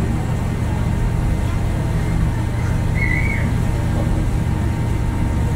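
Passenger ferry's engine running steadily under way, a constant low drone heard from the open deck, with a short high chirp about three seconds in.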